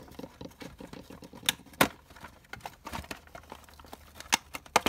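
Hands fumbling with a cardboard toy box: a dense, irregular run of small clicks, taps and scrapes, with a few sharper snaps near the two-second mark and again near the end.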